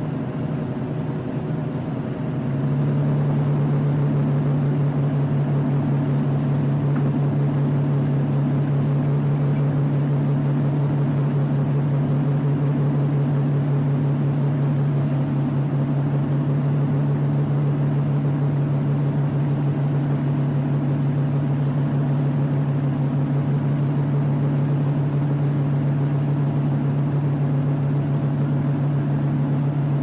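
Steady low hum of ship machinery, with one strong deep tone; it grows louder about two and a half seconds in and then holds level.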